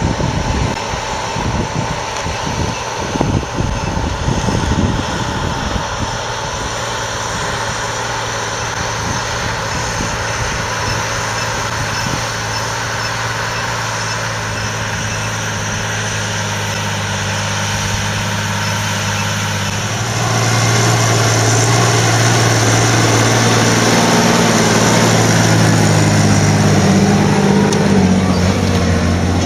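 John Deere 8420's six-cylinder diesel engine running steadily under heavy load, pulling a deep tillage cultivator at full working depth. Wind buffets the microphone for the first several seconds. About two-thirds of the way in the engine becomes louder and closer.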